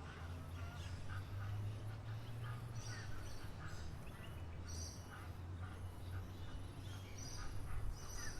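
Several small birds chirping in short, repeated calls, some high and thin, some lower, overlapping throughout, over a steady low rumble.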